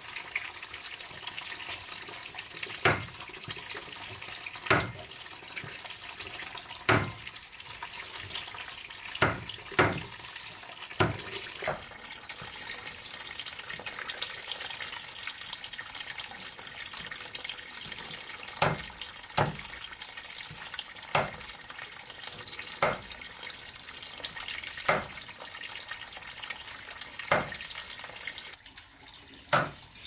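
Running or splashing water with a steady high tone, broken by a sharp knock every one to two seconds.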